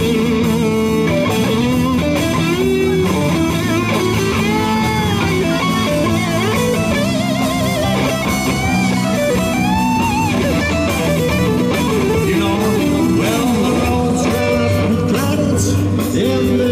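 Live rock band playing, with an electric guitar taking the lead in a melodic solo full of string bends and wide vibrato, over held keyboard chords and a steady drum beat.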